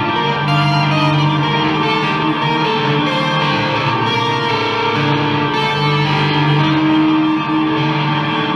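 Instrumental music led by a guitar: held notes that shift in pitch every second or two over a steady layered drone.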